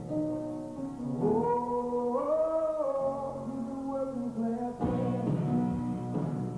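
Music with a singing voice holding long notes that slide up and down in pitch; a new, fuller section cuts in about two-thirds of the way through.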